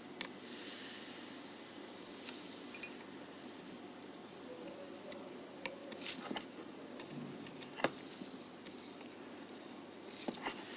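Scattered light clicks and taps of small parts and tools being handled at a repair bench, over a steady faint hiss.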